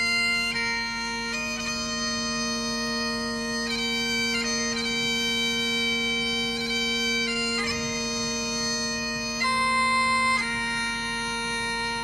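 Bagpipe music: a steady drone under a melody of held notes.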